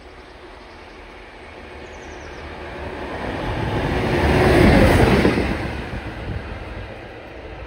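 West Coast Railways Class 37 diesel locomotive, with its English Electric engine, approaching and passing at speed: engine and wheel noise build to a loud peak about halfway through, then fade as it goes by.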